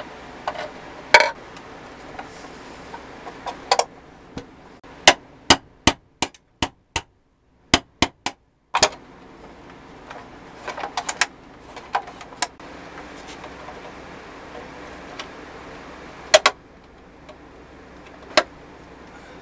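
Sharp clicks and knocks of painted pressed-steel and plastic toy forklift parts being handled and fitted together, irregular, with a quick run of clicks around the middle.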